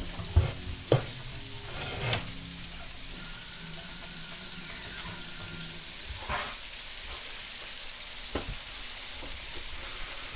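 Potstickers sizzling in hot oil in a frying pan as they brown on the bottom: a steady hiss. A few short knocks come about half a second in, at one and two seconds, and at about six and eight seconds.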